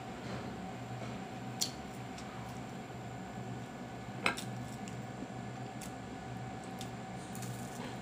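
Steady hum of an electric fan, with two sharp knocks about one and a half and four seconds in and a few lighter clicks as a chocolate-covered crispy bar is handled on a plate.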